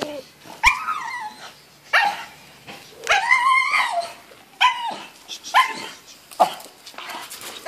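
Staffordshire Bull Terrier giving about seven sharp, high-pitched barks and yelps, one of them drawn out for about a second around three seconds in.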